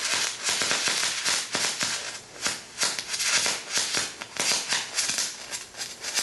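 MIG welding arc on steel plate at 24 volts, an irregular, uneven crackle of sputtering pops that sounds awful. The voltage is too high for the wire feed speed, so the arc melts the wire back toward the gun.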